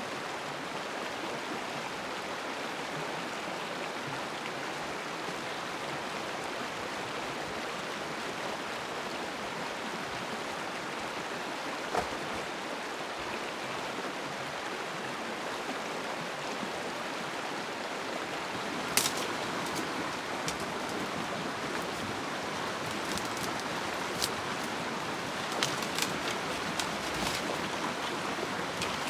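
Steady rush of a flowing stream. One sharp knock comes about twelve seconds in, and a scatter of sharp clicks and knocks runs through the last ten seconds.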